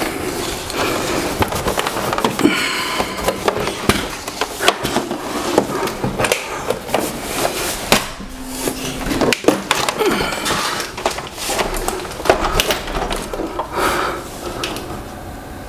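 Cables and equipment being handled on a desk: continuous rustling with many scattered knocks and clicks.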